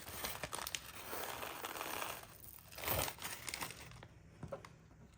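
Small plastic packet of beads crinkling as it is handled, busiest in the first two seconds, with a louder crinkle about three seconds in, then quieter with a few small clicks.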